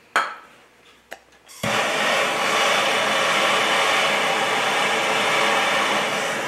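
A sharp click, a second click about a second later, then a loud, steady rushing hiss of a gas or air jet that starts abruptly and keeps going.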